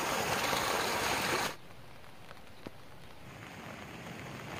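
Rain-swollen stream rushing over rocks, which cuts off suddenly about a second and a half in. A softer, steady hiss of rain follows, with a few drops ticking and one sharper drip near the middle.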